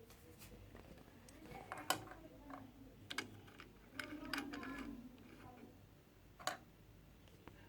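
Faint, scattered clicks and light handling noise from hands adjusting a sewing machine's upper-thread tension knob. The clearest clicks come about two seconds in and again a little past six seconds.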